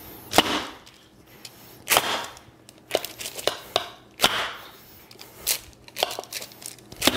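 Metal pizza pan banged down repeatedly on a granite countertop, a sharp clang every second or two with a short ring, the loudest near the start and about four seconds in. It deflates the half-baked giant oatmeal cookie on the pan to crack its top.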